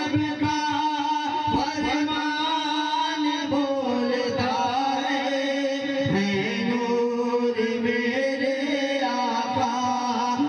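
Men singing a naat (Islamic devotional poem) through microphones and a loudspeaker system, drawing out long, slowly bending held notes.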